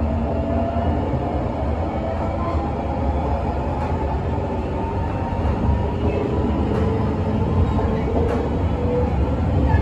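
JR Shikoku 8000-series train's Toyo Denki hybrid SiC VVVF inverter and traction motors, heard from inside the car as it pulls out of a station: a whine of several steady tones over a low running rumble.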